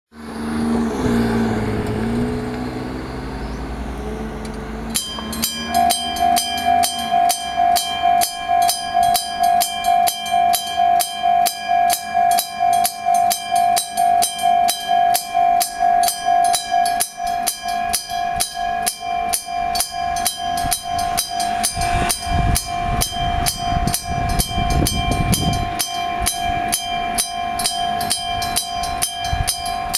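Railway level-crossing warning bell starting about five seconds in, after a vehicle engine passes. It rings with an even strike about twice a second over a steady ringing tone, and the strikes turn faster and less even later on. A low rumble from an approaching train comes and goes near the end.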